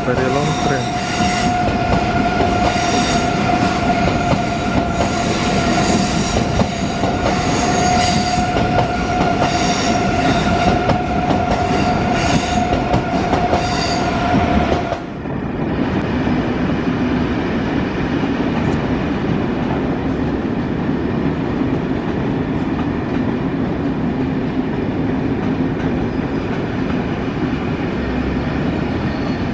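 A high-speed trainset moving slowly on curved station track, with a steady high whine over the running rumble. About halfway through, this switches abruptly to a lower, steady hum of a train standing at a platform.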